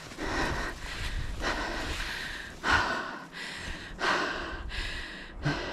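A person breathing hard and audibly while moving on foot, rough breaths coming about once a second, one sharper and louder near the middle.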